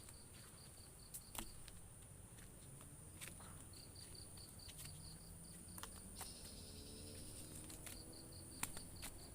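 Faint outdoor insect sounds: a steady high drone with two runs of rapid high chirps, about seven a second, and a few scattered sharp clicks.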